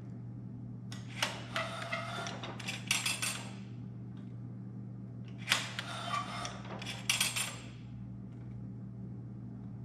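Metal clicking and clattering from a bandsaw blade tooth setter as the blade is stepped along and the setter handle is worked, in two bursts about four seconds apart. A steady low hum runs underneath.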